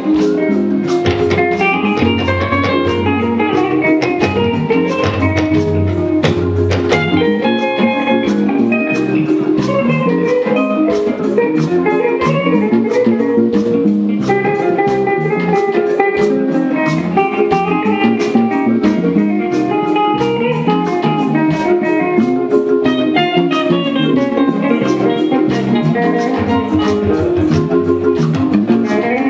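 Live band playing an instrumental passage without singing: several melodic lines over a steady run of percussion strikes.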